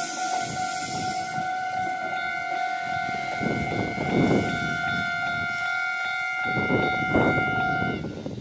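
Japanese level-crossing warning alarm ringing steadily and cutting off near the end as the crossing clears, over the rumble of a Konan Railway 7000 series two-car electric train rolling away on the track.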